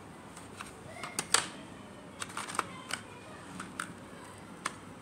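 Scattered light clicks and taps of small items being handled at a ceramic paint palette, about a dozen in all, the sharpest about a second and a half in.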